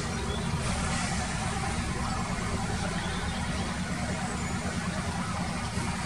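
A steady low rumble with an even hiss above it, unchanging throughout.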